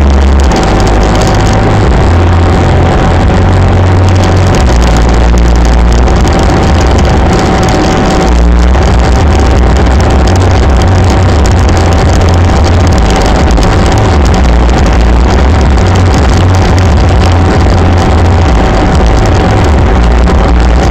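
A car driving at highway speed, heard from inside the moving car: a loud, steady low rumble of engine and road noise, with a thin steady high tone running through it.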